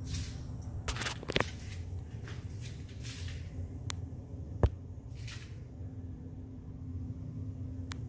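Handling noise from a handheld phone being moved about: scattered rustles and a few sharp clicks and knocks, the loudest about four and a half seconds in, over a steady low hum.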